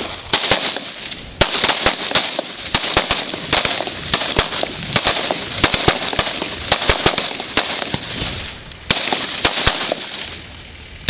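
Rapid gunfire from several carbines firing at once, shots overlapping several times a second in ragged volleys, with a short lull about a second in and another near the eight-second mark, thinning out near the end.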